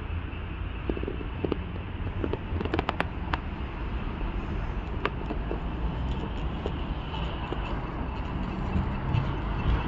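City street ambience picked up by a phone's microphone: a steady hum of road traffic with a low rumble, and a few sharp clicks between about one and three and a half seconds in.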